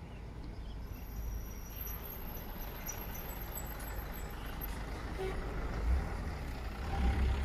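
Truck engine running, a low steady rumble that grows somewhat louder toward the end.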